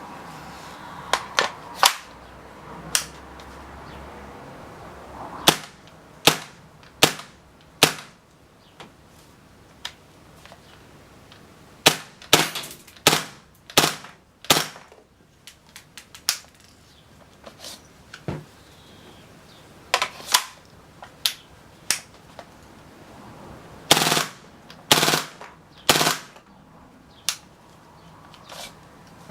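KWA Kriss Vector gas-blowback airsoft gun firing single shots at an irregular pace, about two dozen cracks in all, with three louder, longer ones in quick succession near the end.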